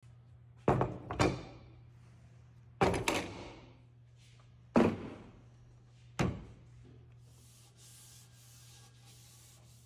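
Rusty old Wetzler bar clamps set down one after another on a workbench: six sharp metal knocks, partly in pairs, each with a short ringing tail. Near the end comes a faint, even rubbing as a gloved hand wipes a clamp's rusty bar.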